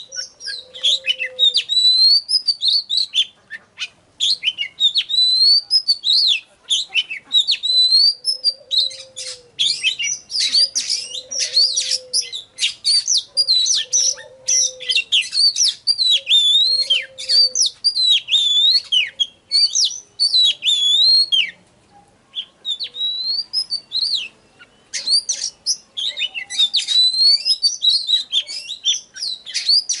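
Oriental magpie-robin singing a fast, varied song of gliding whistled notes mixed with harsher notes, broken by two short pauses about two thirds of the way through. This is the full, excited song used as a lure to rouse other magpie-robins. A softer, lower call repeats behind it several times in the first half.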